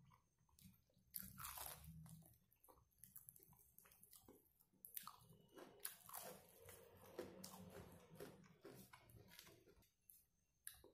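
A person biting into and chewing crispy-coated deep-fried chicken: faint, irregular crunches and chewing crackles, with a short lull near the end.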